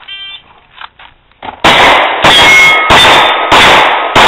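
A shot timer beeps briefly. About a second and a half later a Glock 19 9mm pistol fires five rapid shots, roughly 0.6 s apart, each followed by the clang and ring of steel plate targets being hit.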